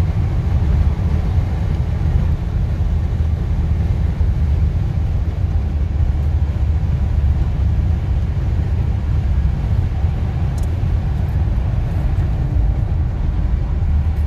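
Steady low rumble of a moving vehicle heard from inside its cabin at motorway speed: road and engine noise, without change.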